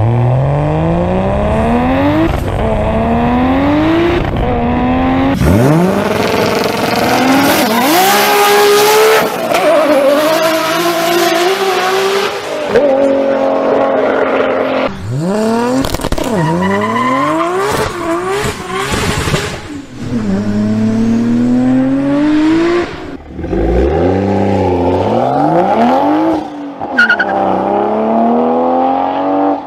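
A run of short clips of straight-six car engines revving hard and accelerating, one car after another: a Ford Falcon's Barra six, a Nissan Skyline's RB26, a Toyota Supra's 2JZ, and near the end a Supra's B58. Each engine's pitch climbs steeply and then falls back, over and over, with abrupt cuts between clips.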